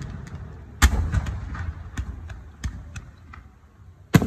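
Aerial fireworks bursting: a loud boom about a second in with a long rumbling tail, a scatter of smaller sharp cracks, then another loud boom near the end.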